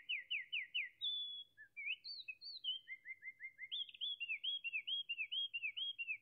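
A wren singing: one long, fast song of rapid trills and chirps, the note pattern changing every second or so.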